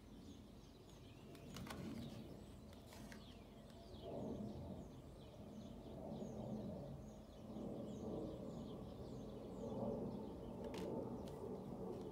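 Faint bird chirping, many short high chirps repeating throughout, with a few soft clicks from cards being handled.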